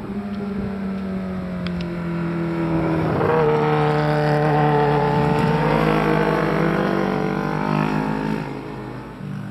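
Sport motorcycle engine running at high revs on a race track, growing louder as it comes closer, loudest through the middle, then fading near the end.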